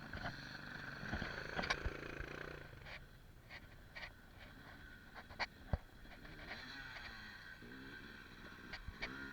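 Enduro motorcycle engine idling faintly and steadily, with scattered clicks and knocks.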